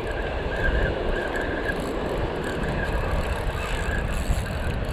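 Wind buffeting the microphone over the wash of surf on a beach, a steady low rumble, with a faint thin whine held underneath.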